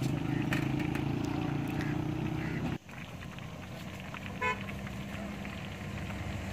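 Fish frying in oil in a large iron karahi, under a steady low engine hum that cuts off suddenly about three seconds in. A short vehicle horn toot sounds about a second and a half after that.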